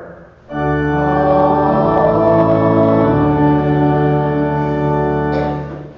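Church organ holding two long chords of the sung Amen, changing chord about halfway through, with the congregation singing along.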